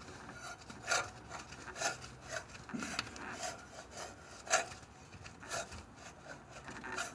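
Car AC compressor clutch spinning with an irregular scraping, rasping grind and a few sharper scrapes: the clutch is worn out.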